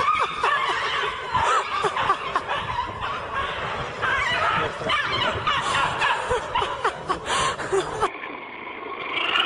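People laughing and snickering in short bursts. About eight seconds in the sound changes to a different, duller recording.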